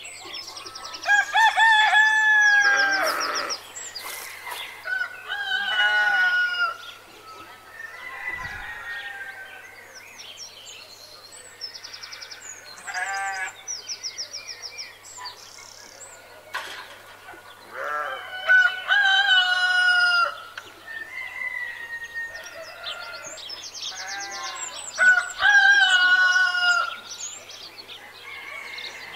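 Roosters crowing again and again, about five long crows, with clucking and short rapid high trills between.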